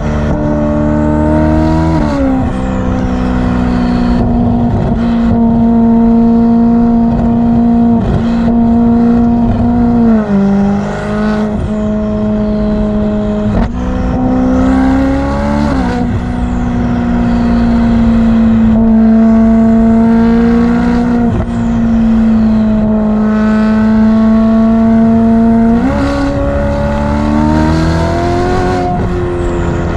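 Ferrari F8's twin-turbo V8 exhaust droning at steady revs for several seconds at a time, its pitch shifting up and down several times as the revs change. Faint high whistles fall away around some of the shifts, the turbos spinning down.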